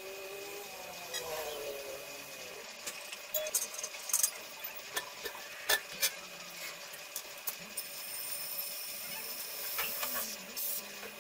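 Sandblaster running inside a homemade blast cabinet: a steady hiss of the air blast with many irregular sharp ticks and clicks, thickest in the middle.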